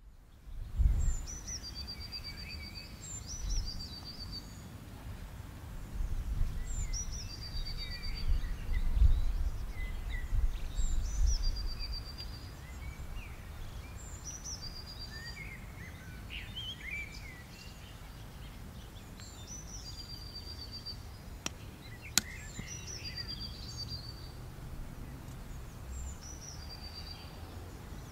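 A songbird singing the same short phrase over and over, a quick falling note followed by a brief high trill, every couple of seconds. Under it runs a low wind rumble that swells about a second in and again around the ninth to eleventh seconds, and there is a single sharp click about 22 seconds in.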